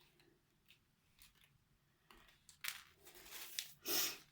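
A small plastic bag of craft embellishments rustling and crackling as it is handled and opened. The sounds come in short bursts starting about two seconds in, the loudest near the end.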